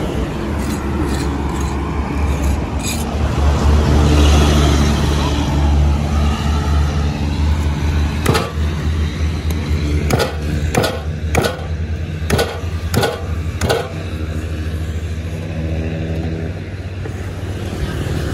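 An engine running steadily with a low hum. Partway through comes a run of about seven sharp knocks.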